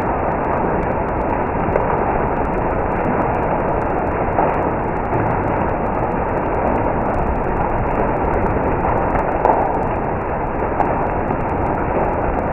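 Hail falling hard, a dense, steady roar of countless stones striking, with faint scattered ticks on top.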